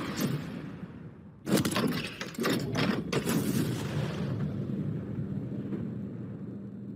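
Logo-intro sound effects: a sudden heavy cinematic impact hit about a second and a half in, two more hits within the next two seconds, then a low humming tail that slowly fades.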